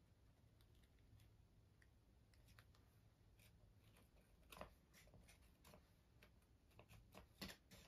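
Near silence with faint, scattered clicks and taps of fingers handling cardboard toilet-paper-roll loops on a cutting mat. Two slightly louder taps come, one a little past the middle and one near the end.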